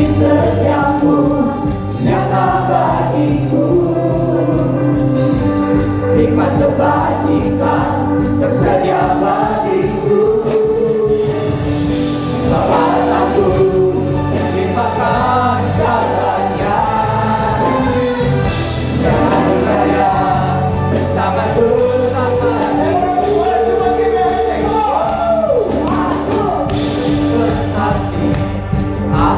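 Live church worship music: a band with sustained low bass notes and a group of voices singing a gospel song together.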